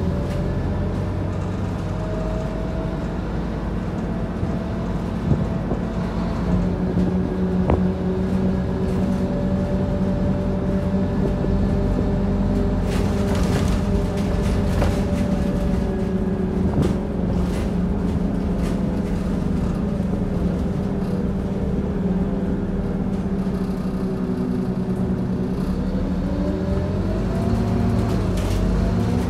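Scania OmniCity bus heard from inside the passenger saloon while on the move: the Scania five-cylinder diesel engine and driveline make a steady hum that rises and falls in pitch with road speed near the end. A few knocks and rattles from the body come through around the middle.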